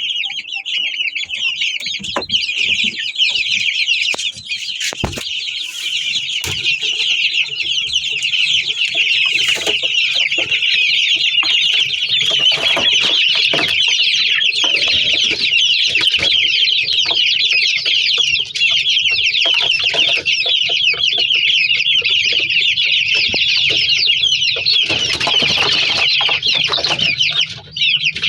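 A brood of aseel chicks peeping non-stop, many short high-pitched calls overlapping, with a few scattered knocks.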